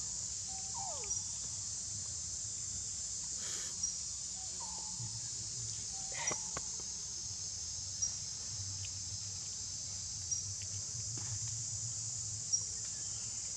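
Steady high-pitched chorus of insects, with a few brief chirps and faint clicks over it.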